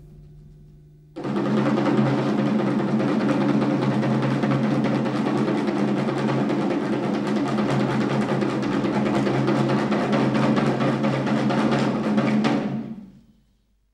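A loud, sustained drum roll with a steady low pitch that starts abruptly about a second in and fades out near the end.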